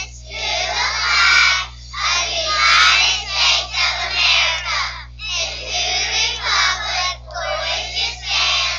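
A group of children reciting the Pledge of Allegiance together in unison, phrase by phrase with short pauses between.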